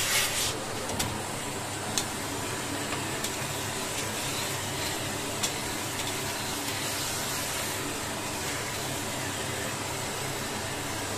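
Vacuum cleaner running steadily, its brush nozzle sucking lint off a tumble dryer's plastic mesh lint filters, with a few sharp clicks in the first seconds.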